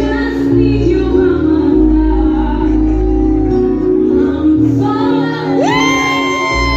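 Music with a deep bass line and singing; about five and a half seconds in, a voice swoops up into a long held note.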